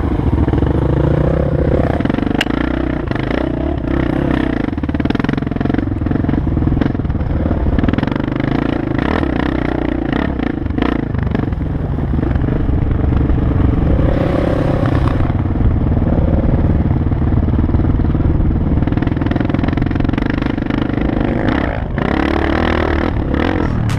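Enduro motorcycle engine running and revving, its pitch rising and falling as the throttle is worked.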